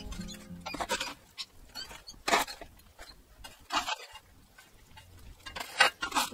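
Metal shovel scraping and scooping burning coals across the steel bed of a fire pit: four short scrapes about a second and a half apart, the last the loudest.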